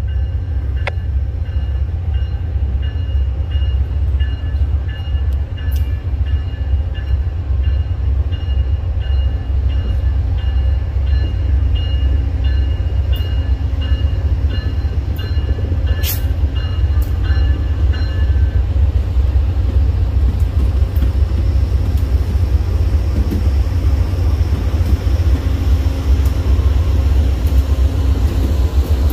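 Amtrak GE P42DC diesel locomotives pulling past slowly, a heavy steady engine rumble, with a bell ringing in a steady repeating pattern that stops about two-thirds of the way through.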